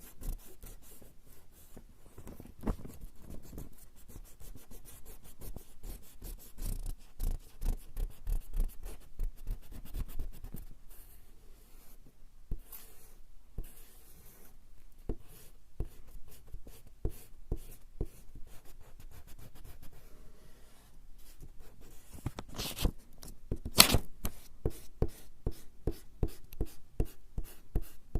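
Rubber eraser rubbing back and forth on coarse straw paper (warabanshi) in quick, repeated scratchy strokes, with a short pause about twelve seconds in.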